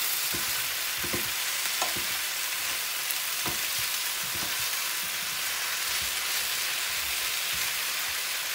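Sliced potatoes and onions sizzling steadily in olive oil in an electric skillet. A wooden spatula gives a few scrapes and knocks against the pan as the slices are turned over.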